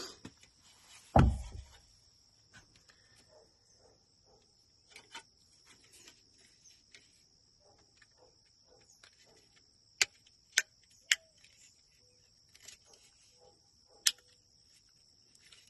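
Small plastic truck door switch parts being handled: a thump about a second in, then scattered light clicks and rustles, with three sharp clicks in quick succession around ten seconds in and one more a few seconds later.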